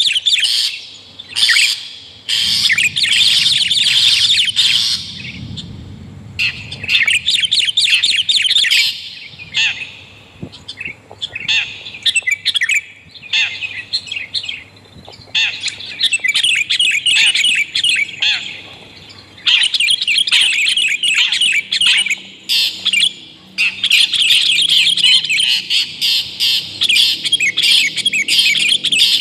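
Bird-lure recording of long-tailed shrike and sooty-headed bulbul calls: loud, rapid, harsh chattering and squawking in bursts a few seconds long, broken by short pauses.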